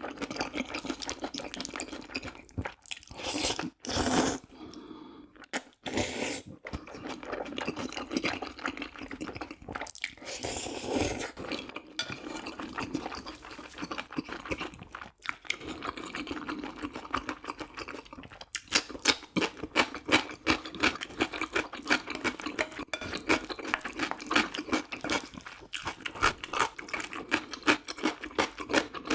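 A person chewing food close to the microphone: wet, squelchy chewing with sharp crunchy clicks. The clicks come thicker and louder from about two-thirds of the way in.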